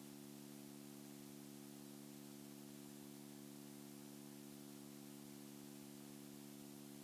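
Near silence: only a steady low hum with faint hiss, unchanging throughout.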